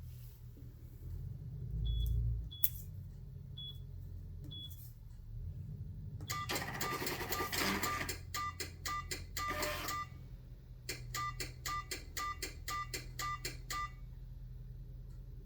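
Alarm-event printer printing: a few short high beeps, then about four seconds of dense mechanical clatter with a whine, then a regular run of short clicks at about three a second, over a steady low hum.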